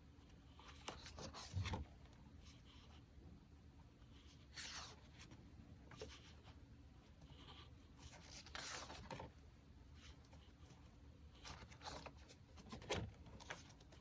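Faint paper rustling and soft brushing as the pages of a desk calendar are turned one by one, in short separate bursts a few seconds apart.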